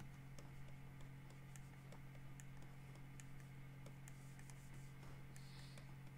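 Near silence: a low steady hum with faint, scattered computer-input clicks.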